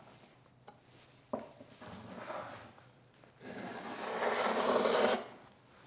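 A Lie-Nielsen router plane's blade shaving the floor of a wooden dado: a click about a second in, a short scrape, then a longer, louder rasping cut.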